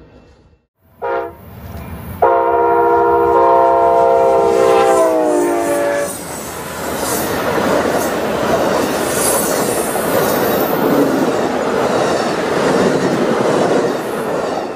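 Amtrak diesel locomotive horn: a short blast about a second in, then a long multi-note chord that drops in pitch as the train passes. After that comes the steady rumble and clatter of the passing passenger train.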